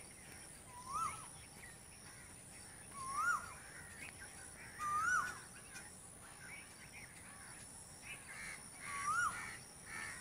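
A bird calling: four short calls that rise and fall in pitch, spaced a couple of seconds apart, over a faint steady high-pitched whine.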